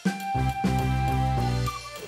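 Background music: held notes over a bass line with light percussion.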